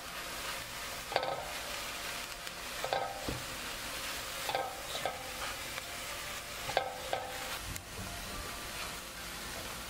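Mushrooms and peas sizzling in a stainless steel pan as a silicone spatula stirs them: a steady frying hiss with a few short knocks and scrapes of the spatula against the pan, about every second and a half.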